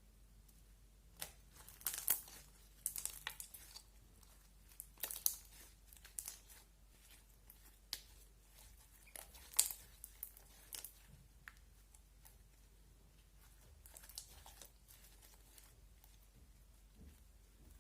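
Slime being squished and stretched by hand, giving off sticky crackles and pops in several short clusters with quiet spells between.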